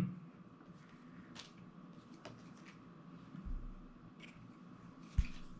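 Scattered soft clicks and rustles of trading cards being handled and laid down one at a time, with a sharper knock about five seconds in.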